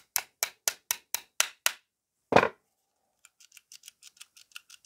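Small hammer tapping a pin into a pistol frame during reassembly: a steady run of light metal taps, about four a second, then one heavier knock about two and a half seconds in. After that comes a run of faint, quicker small clicks.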